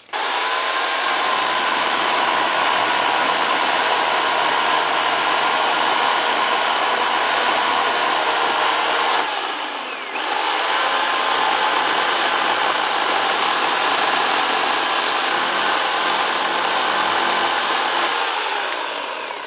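Harbor Freight Portland electric chainsaw cutting through a pecan limb, its motor running with a steady whine. About halfway it briefly slows and drops off, then spins back up and keeps cutting, winding down near the end.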